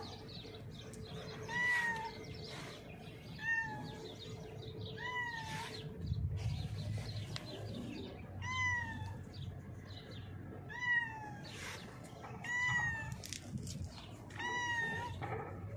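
A domestic cat meowing repeatedly: about eight short meows roughly two seconds apart, each rising and then falling in pitch.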